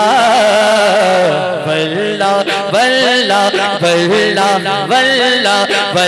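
A man singing devotional Urdu verse into a microphone in a slow melody, holding long notes that glide and step between pitches.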